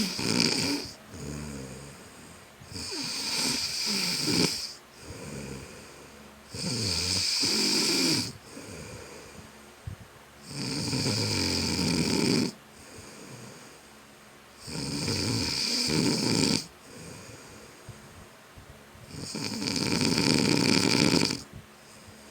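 A person snoring in deep sleep: loud snores about every four seconds, six in all, each lasting a second or two, with quieter breathing between.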